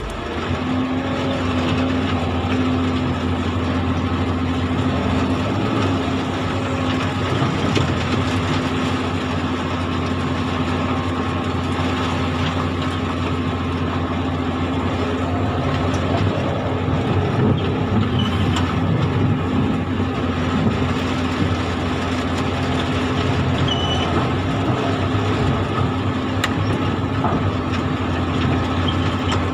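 Komatsu excavator's diesel engine running steadily with a low hum, heard from inside the operator's cab while the machine works.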